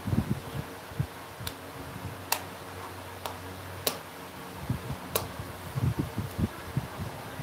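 Five sharp, separate clicks at uneven intervals over low rumbling background noise.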